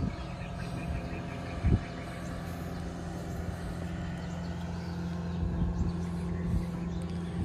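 An engine running steadily at an even pitch, with one sharp knock a little under two seconds in.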